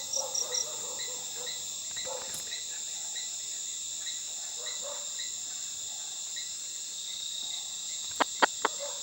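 Night-time insect chorus: crickets chirping at a steady pace of about two chirps a second over a continuous high insect drone. Near the end come three sharp clicks.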